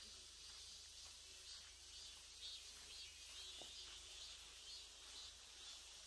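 Faint insect chirping, pulsing in a steady rhythm over a high, even hiss of forest ambience, with one brief faint call about three and a half seconds in.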